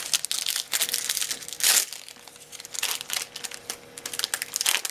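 Foil booster-pack wrapper of Yu-Gi-Oh cards crinkling and crackling as it is handled and torn open, in irregular bursts, the loudest about a second and a half in.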